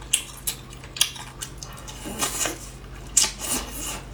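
Close-up mukbang eating of cat's eye snails: sharp clicks of shells or utensils knocking against a dish, with noisy bursts of chewing between them.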